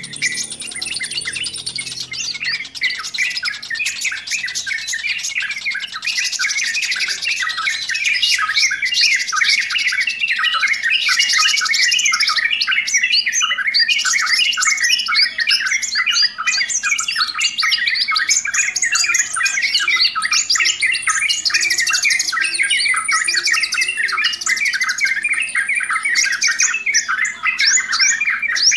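Yellow-vented bulbul chatter: a dense, continuous run of rapid, sharp, overlapping calls, growing a little louder about six seconds in.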